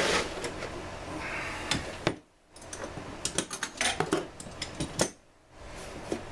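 Small hard parts clinking and clattering as they are handled on a workbench, with several sharp clicks and knocks over a low steady hum. The sound drops out briefly twice.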